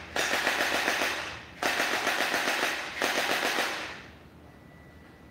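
Electric P90 gel blaster firing full-auto in its fast 'ultra mode', giving three long bursts of rapid shots. The firing stops about four seconds in.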